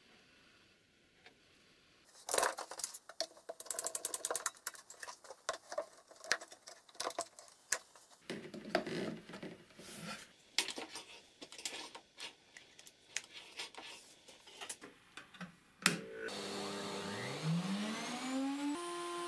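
Clattering clicks and knocks of a plastic dust-extraction hose being handled and pushed into the fence port of a homemade router table. Near the end a switch clicks and the router motor under the table spins up with a rising whine, then settles into a steady high hum with a rush of air.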